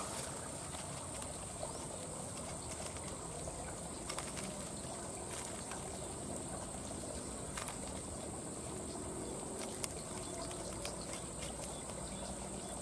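Quiet rice-field ambience: a steady high-pitched insect drone, with a few faint ticks and rustles of dry grass as an eel line is worked into a hole in the mud.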